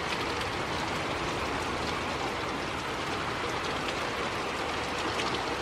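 Heavy rain pouring down steadily with no wind, an even dense hiss.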